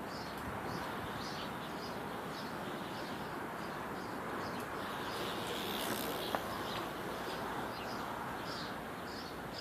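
Outdoor background: a steady hiss with small birds chirping repeatedly, a few short chirps a second.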